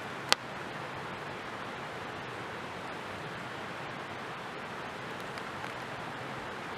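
Wood campfire hissing steadily, with one sharp pop about a third of a second in.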